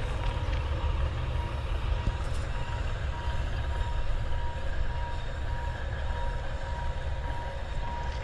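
A narrow-gauge Alishan Forest Railway logging train running away along the track into the forest: a steady low rumble with a faint, steady high tone over it.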